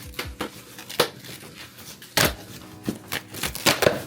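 Packaging being handled and opened by hand: a series of irregular knocks and crinkles, the loudest a little over two seconds in.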